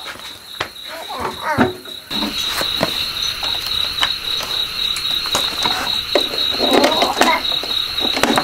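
Crickets chirping in a steady pulsing trill that comes in about two seconds in. Over it are scattered clicks and knocks of equipment being handled, as a portable power station is set down and cables are plugged in.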